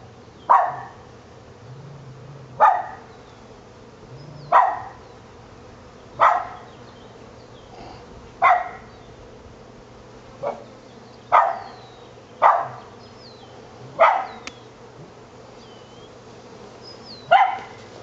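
A dog barking in single sharp barks, about ten of them, one to two seconds apart.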